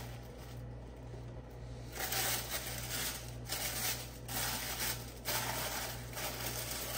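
Gift packaging rustling and crinkling as a present is unwrapped, in several bursts starting about two seconds in, over a steady low hum.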